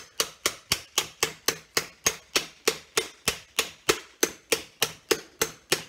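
A hammer strikes a metal spatula wedged between a shoe's worn rubber top lift and its leather stacked heel base, in a steady run of about four sharp blows a second, each with a short ring. The blows drive the spatula from the front of the heel toward the back to pry the old top lift off.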